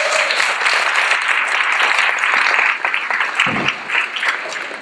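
Audience applauding: dense clapping for the first three seconds or so, thinning out to scattered claps near the end.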